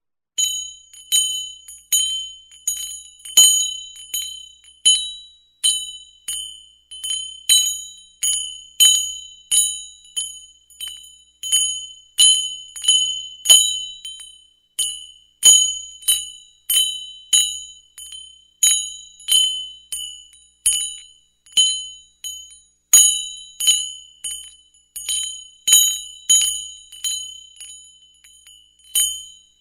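A cattle bell ringing over and over in an uneven swinging rhythm, about one and a half strikes a second. Each strike is a bright, high-pitched ring that dies away before the next, some strikes louder than others.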